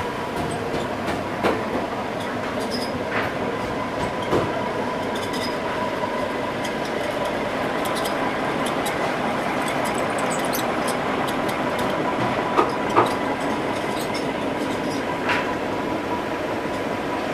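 Steady machine noise with a faint constant whine, and scattered light knocks and clicks; a pair of sharper knocks stands out about three-quarters of the way through.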